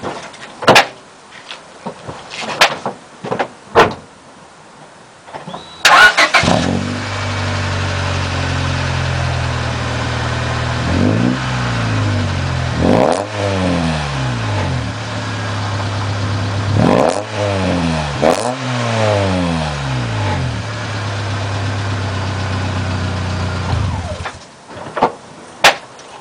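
1999 Honda Civic Si's four-cylinder engine breathing through a new Ractive Fireball aftermarket muffler: it is started about six seconds in, idles steadily, is revved lightly four times, rising and falling each time, and is shut off near the end. A few sharp clicks come before the start and after the shutoff.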